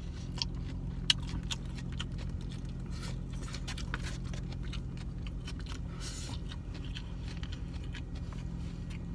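Person chewing food, with scattered small sharp clicks, over a steady low hum.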